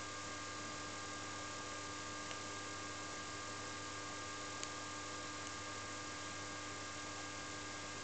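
Steady electrical hum with a background hiss and a couple of faint ticks.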